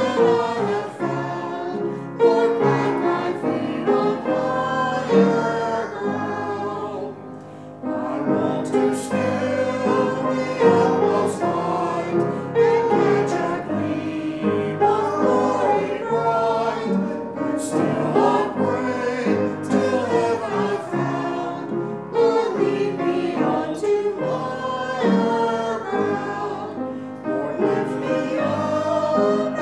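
A group of voices singing a hymn together, with long held notes.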